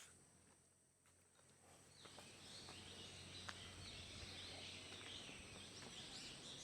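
Faint chorus of birds chirping in forest, starting about two seconds in, over a thin steady high-pitched tone.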